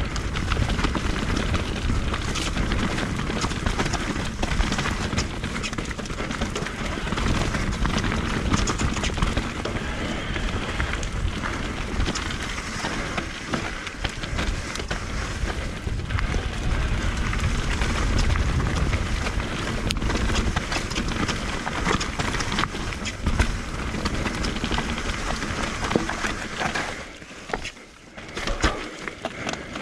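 Merida e160 electric mountain bike riding fast down a rough dirt singletrack: tyres running over dirt, rocks and leaf litter, with constant rattles and knocks from the bike over the bumps. Near the end it goes briefly quieter, then a few sharp knocks.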